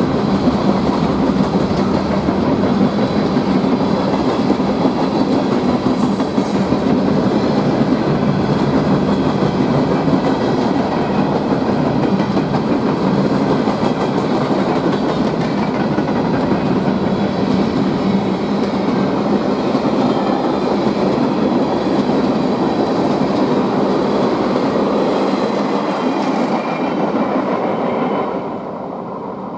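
Freight cars of a mixed manifest train (tank cars, covered hoppers, coal hoppers) rolling past with steady wheel-on-rail noise. Near the end the noise falls away as the last car clears.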